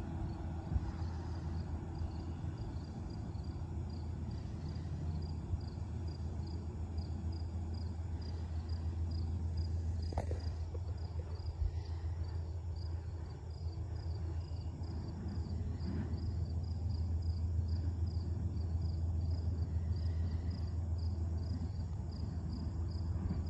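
Insects, likely crickets, chirping in an even pulse about three times a second, over a steady low rumble. A single sharp click about ten seconds in.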